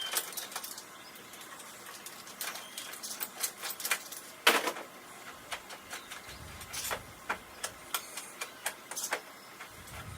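Irregular clicks and light knocks of hand work on a golf cart's metal bars and fittings, with one louder knock about four and a half seconds in.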